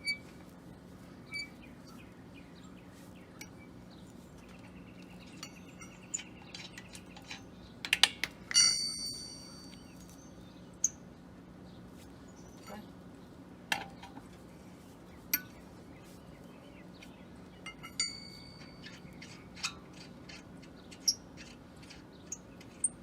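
Lug nuts being taken off a car wheel with a hand lug wrench: scattered metal clicks and clinks. The loudest is a ringing metallic clink about eight seconds in, with another near eighteen seconds.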